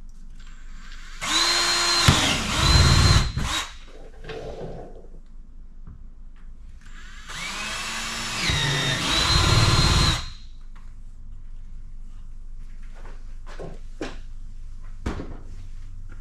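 Cordless drill boring starter holes through a plastic storage tote lid, in two runs of two to three seconds each, the motor whine rising as it spins up and falling as it slows. A few light clicks and knocks follow near the end.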